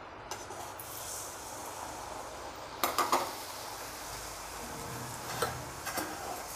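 Murukku, a spiral of rice-flour dough, sizzling steadily as it deep-fries in hot oil in a kadai. About three seconds in there are a few metal clinks, with a couple more near the end.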